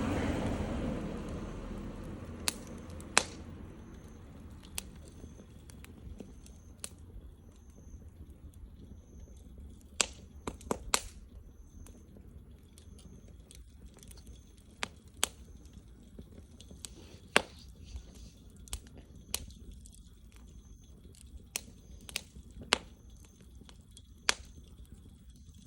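Wood campfire burning, crackling with irregular sharp pops and snaps over a low steady rustle.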